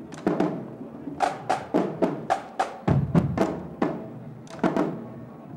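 Marching band drumline playing a cadence on snare drums and bass drums: crisp strikes about three to four a second, with a deep bass drum hit about three seconds in.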